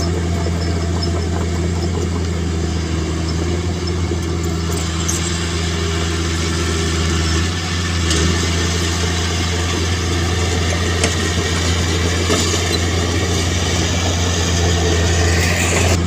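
Heavy-machinery diesel engine running steadily at an even speed, a constant low drone.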